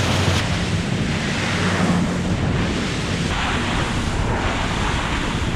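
Steady rush of water and wind buffeting the microphone on a powerboat running at speed, its bow throwing up spray.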